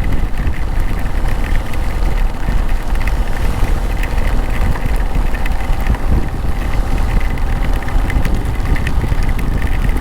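Motorcycle engine running steadily while riding, under loud, steady wind rush on the microphone.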